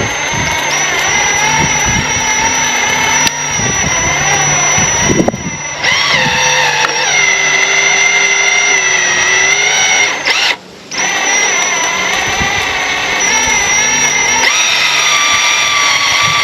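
Kubota tractor running under load as it pulls scrap wire through a stripper, a steady high whine over the engine. The pitch shifts a little partway through, with a brief break a little past the middle.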